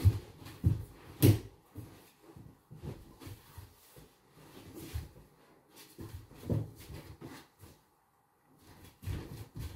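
Irregular thumps, knocks and rustles of a barefoot dancer rolling and moving on a wooden floor, heard through a video call's audio. The loudest knock comes about a second in, and the sound drops out completely for a moment near the end.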